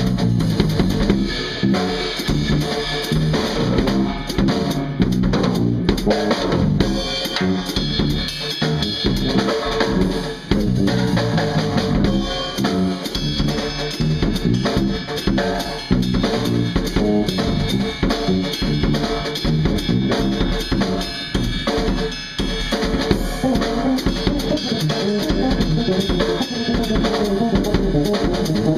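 Drum kit and electric bass playing a jazz-fusion jam together: dense snare and bass drum hits over a moving bass line.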